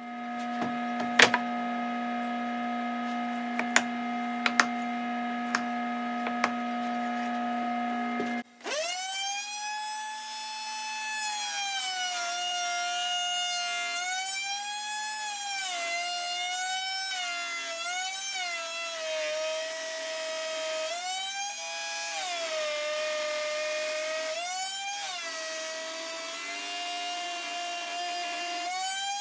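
Router table router running with a large spiral template bit, then cutting a hard maple table leg guided by a template sled. A steady whine with a few sharp clicks early on gives way, after about eight seconds, to the motor's pitch sagging under load and recovering again and again as the bit takes and eases off the cut.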